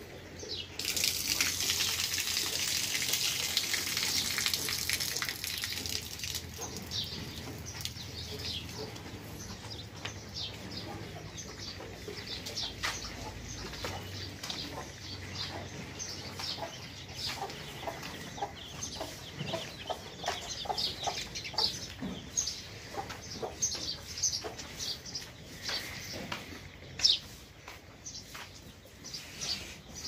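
A steady hiss for about the first five seconds, then many short, high bird calls and chirps in quick, irregular succession, with one louder sharp sound near the end.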